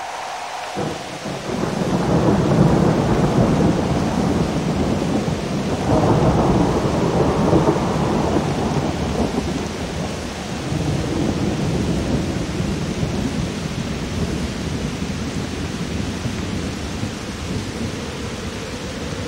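Thunderstorm: steady rain with thunder rolling, loudest about two seconds in and again about six seconds in. A held pitched tone stops about a second in.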